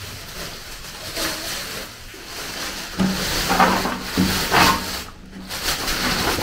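Thin black plastic bag rustling and crinkling as it is untied and handled over a metal basin. It grows busier and louder from about halfway, with a few short pitched sounds among the rustling.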